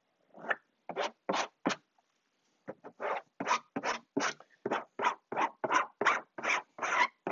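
Plastic squeegee scraping over a glue-soaked fabric doily on a fabric-covered wing in short strokes, pushing the bubbles out toward its edge. Four quick strokes, a pause of about a second, then a steady run of about three strokes a second.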